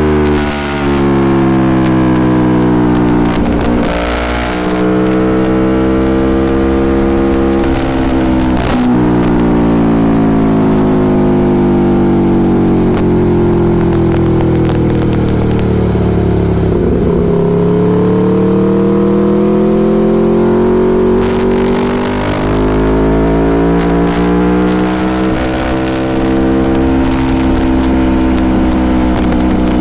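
Aprilia Tuono Factory motorcycle engine on the move, its pitch climbing and dropping with throttle and gear changes. It winds down to its lowest about halfway through, then pulls up again, with wind rushing over the microphone.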